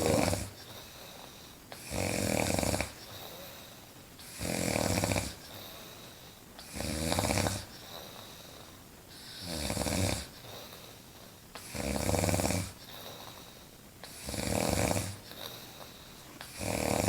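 A woman snoring insanely loud, one snore about every two and a half seconds.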